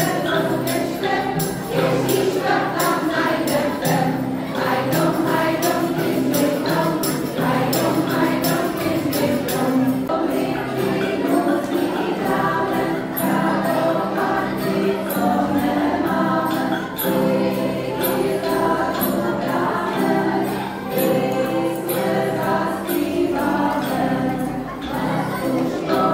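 A group of adults singing a Czech Christmas carol together, accompanied by an acoustic guitar, with a tambourine and other hand percussion shaken on the beat.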